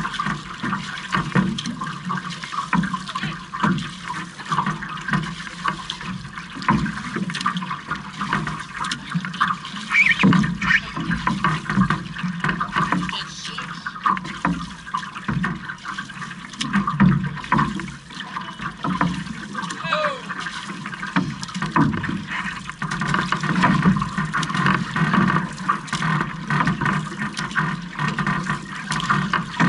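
Water rushing and splashing along the hull of a six-person outrigger canoe under way, with paddle blades dipping and pulling through the water on the crew's strokes.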